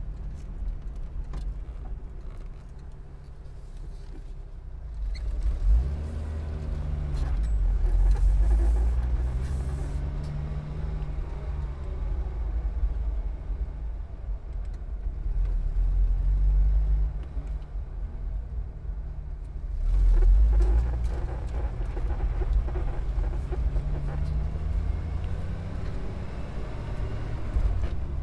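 Car travelling along a motorway: a steady low road and engine rumble, with engine pitch slowly rising and falling and several louder swells.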